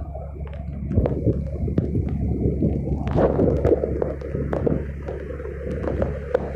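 Fire engine's diesel engine idling with a steady low hum, with irregular knocks and rustling from the phone being handled close to the microphone, heaviest about a second in and again around three to four seconds in.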